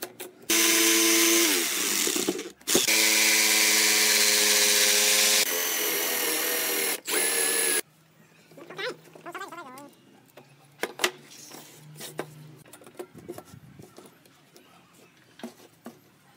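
Small handheld rotary power tool with a carving burr grinding a recess into a wooden board. It runs for about seven seconds, cutting out briefly once, its pitch sagging for a moment as it bites. Then it stops, leaving light clicks and knocks of the wood being handled.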